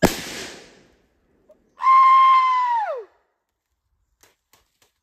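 A sharp knock, then about two seconds in a long, high, held yell that slides down in pitch as it ends.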